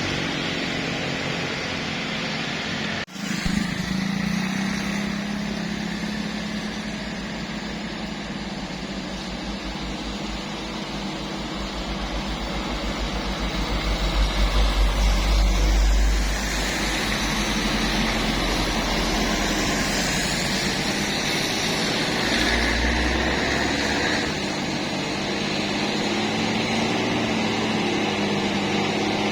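Road traffic climbing an uphill bend, engines running under load; a heavy engine with a deep pulsing rumble passes loudest about halfway through. The sound cuts out for an instant about three seconds in.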